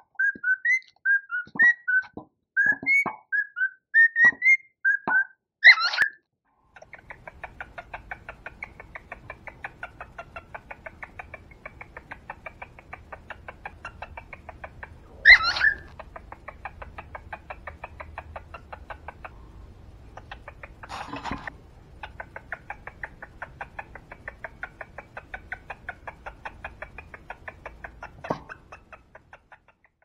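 Cockatiel calling: a quick run of short whistled chirps ending in a sharp, loud call. Then a long stretch of fast, even chattering at about four a second, broken by two more loud calls.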